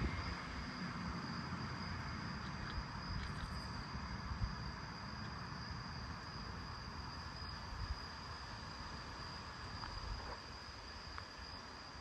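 Night insects trilling steadily on one high note, over a low rumble that slowly fades.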